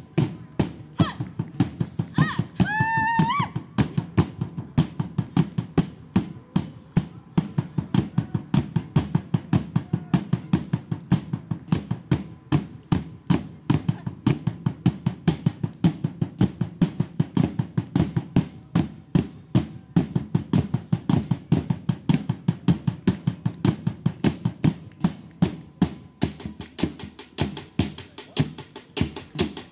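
Philippine indigenous drums beaten with sticks in a steady, quick rhythm of about four beats a second. A high, drawn-out vocal cry rises and falls about two to three seconds in.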